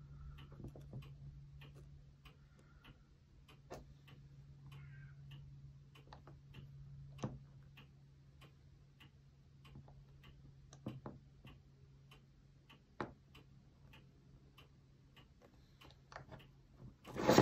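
Light clicks and ticks, about two a second and uneven in loudness, as a small model ladder is handled and repositioned in a bending jig, over a low steady hum.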